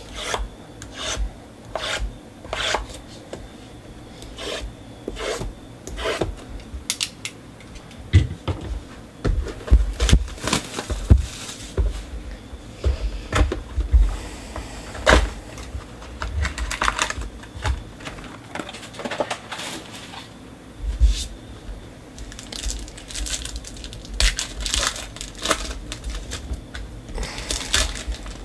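Hands handling and opening sealed trading-card boxes: a run of cardboard taps, clicks and scraping. Near the end come denser crinkling rustles as a foil card pack is torn open.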